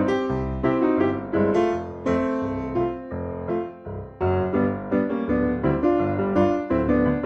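Background music led by piano, with a steady rhythm of struck chords and notes.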